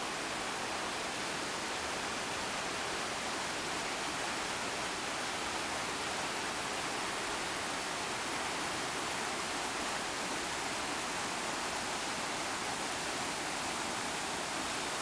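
Rapids and a small waterfall on a river, water rushing and splashing over rocks in a steady, even rush that never lets up.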